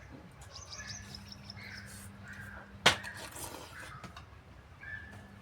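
Birds chirping and calling in short repeated notes and brief gliding calls, with one sharp knock about three seconds in over a faint steady hum.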